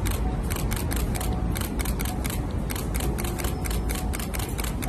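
Press photographers' camera shutters clicking rapidly and irregularly, several clicks a second, over a steady low street rumble.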